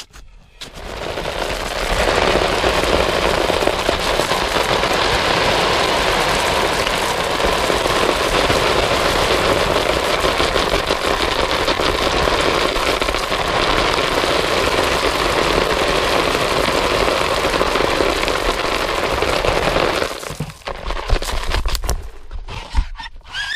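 Gravel pouring down through a crawl-space vent into a plastic bucket: a steady, dense rattling rush that starts a second or two in and stops suddenly a few seconds before the end, followed by a few scattered clatters of stones.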